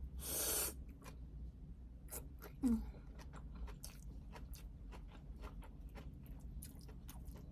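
Close-up eating of a fried spring roll (lumpia): a noisy bite in the first half-second, then repeated crunchy chewing clicks, with a short hum of the voice about two and a half seconds in.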